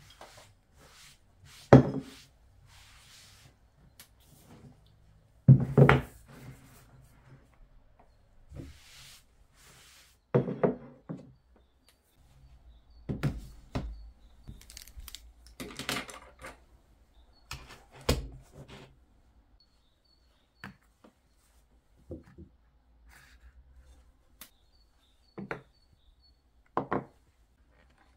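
Objects being set down and moved around on a desk: a string of separate knocks and thunks a few seconds apart, some with a short scrape or rattle, the loudest two in the first six seconds.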